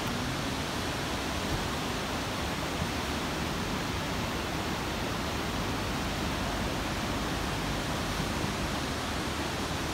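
Steady monsoon rain falling on forest, an even, unbroken hiss.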